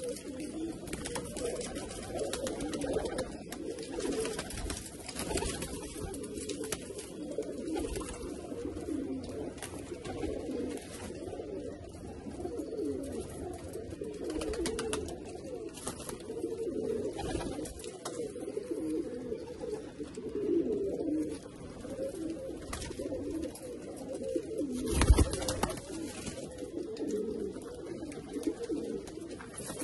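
Malwai pigeons cooing continuously in a loft, many birds overlapping. There is a single loud thump about 25 seconds in.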